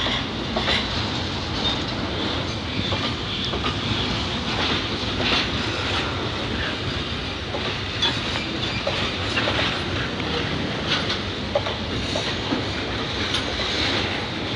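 Container flat wagons of a freight train rolling past close by: a steady rolling noise of steel wheels on rail, with wheels clicking over rail joints at irregular moments.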